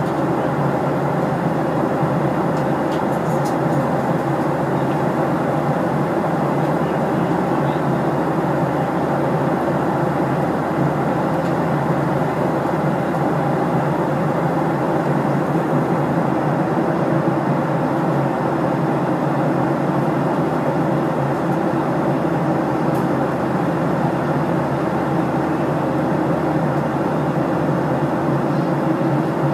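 Steady cabin noise of an airliner in cruise, heard from inside the cabin: an even, unbroken drone of engines and airflow.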